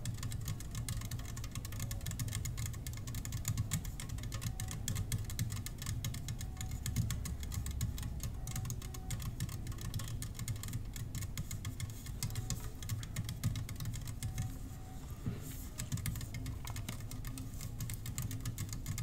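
Rapid, continuous light tapping on mini-bar bottles, many taps a second, with short faint ringing tones now and then.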